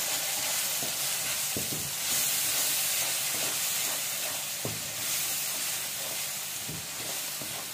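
Spiced onion-tomato masala sizzling in hot oil in a non-stick wok while a wooden spatula stirs and scrapes through it. The spatula knocks against the pan a few times.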